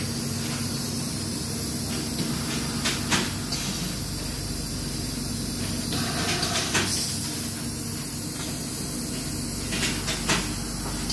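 Steelco VS6/2 steam sterilizer running, a steady hum with hiss, broken by a few short hisses and clicks about three seconds in, around six to seven seconds and near the end.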